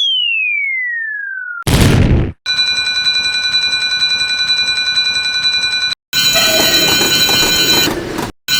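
Cartoon sound effects: a whistle-like tone glides down in pitch, then comes a short loud noisy burst about two seconds in. After it, a steady electronic alarm-like ringing of several tones starts, breaks off for a moment about six seconds in, and starts again.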